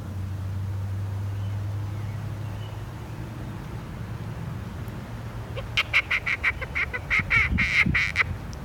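A rapid run of short, pitched animal calls, several a second, starting about six seconds in, over a steady low hum.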